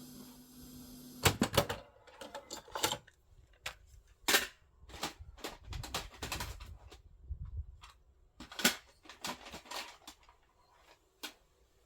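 Irregular plastic clicks and knocks from a Philips AZ1081 CD/cassette boombox being worked by hand, its cassette keys and controls pressed and the unit handled. A steady low hum with hiss cuts off at the first loud click, about a second in.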